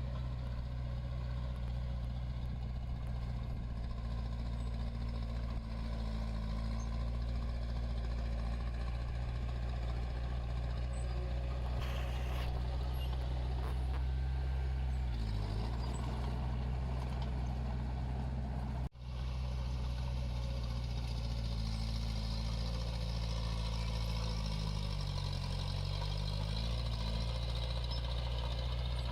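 Diesel engine of heavy earthmoving machinery running steadily, its pitch dipping briefly a little before halfway and again near the end. The sound drops out for an instant a little past halfway.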